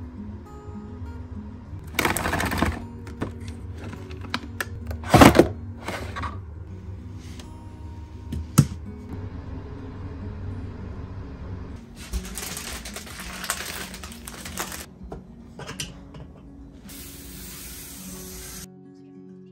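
Soft background music, over which come a few sharp knocks and clicks in the first half, the loudest about five seconds in, and then two stretches of rustling in the second half while mizuhiki cords and their packaging are handled on a table.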